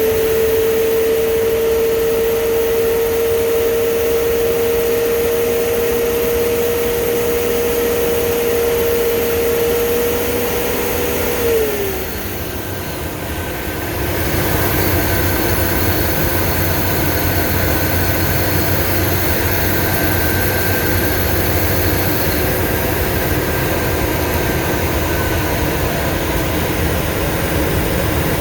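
Blue Bird school bus running on the road, heard from on board: a steady drone with a whine that glides down in pitch about twelve seconds in. The sound then eases off for a couple of seconds and runs steadily again.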